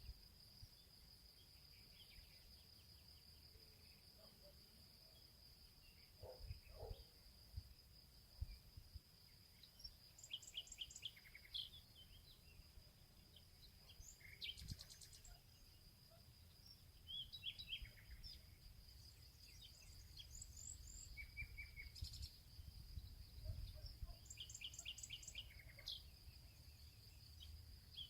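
Faint birds chirping in short repeated calls, over a steady high-pitched whine and a low background rumble, with a few soft low thumps early on.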